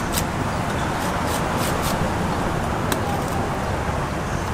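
Steady low background rumble of a busy street market, with a few short, light clicks and rustles scattered through it.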